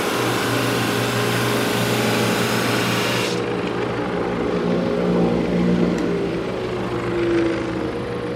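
Drum sander running with an oak panel feeding through it on a slow sanding pass: a steady machine hum under a high sanding hiss that drops away abruptly about three seconds in.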